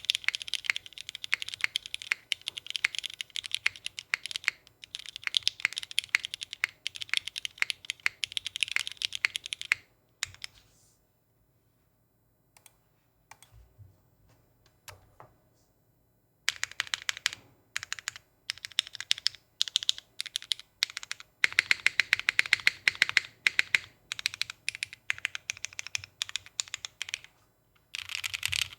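Fast typing on a Kohaku custom mechanical keyboard with Cherry MX2A switches, an aluminium gasket-mounted plate and GMK Norse keycaps: a quick run of keystrokes. About ten seconds in the typing stops for several seconds, with only a few faint clicks, then resumes.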